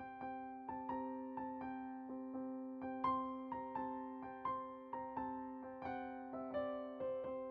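Background music: a gentle electric piano or keyboard piece playing a slow run of single notes, about three a second, over a sustained low note.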